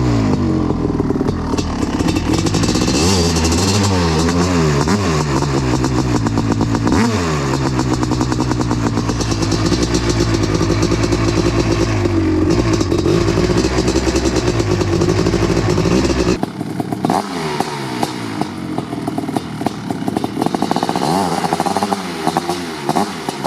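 1988 Kawasaki KX500's 500 cc single-cylinder two-stroke engine, through its FMF Fatty expansion pipe, being blipped repeatedly so its pitch rises and falls, then held at steady high revs. About two-thirds of the way in the sound abruptly thins and drops in level, and more blips follow.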